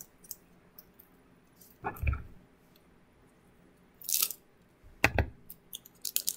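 Foil trading-card booster pack wrapper being handled and torn open: short crinkling, tearing bursts about 2, 4 and 5 seconds in, with small crackles and clicks near the end.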